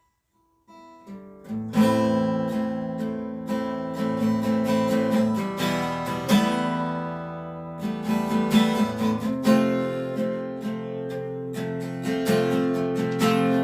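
Instrumental song intro on guitar: a few soft picked notes, then strummed chords from about two seconds in.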